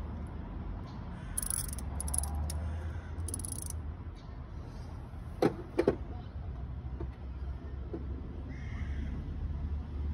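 Small car petrol engine idling with a steady low hum. Two sharp knocks about halfway through are the loudest sound, and there are a few brief high rattles in the first few seconds.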